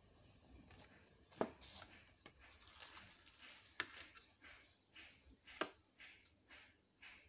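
Hands tearing a fried puri and scooping chole with it: faint crackling and soft wet squishing, with three sharper clicks, about a second and a half in, near four seconds and near six seconds.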